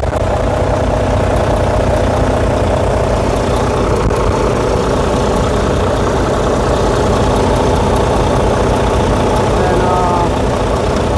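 Volvo semi truck's diesel engine idling steadily with the air conditioning running.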